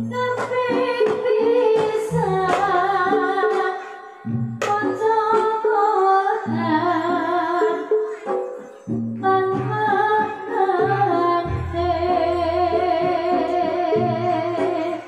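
Live Javanese gamelan accompaniment for a barongan dance, with a woman singing a long wavering melody over the ensemble's low drum strokes.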